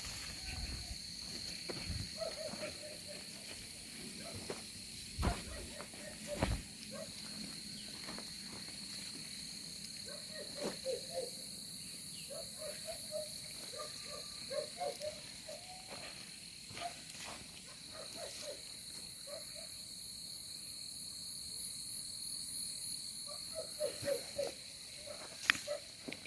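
Steady high-pitched drone of insects such as crickets, with clusters of short, lower chirping calls repeating through it and a couple of sharp knocks about five and six and a half seconds in.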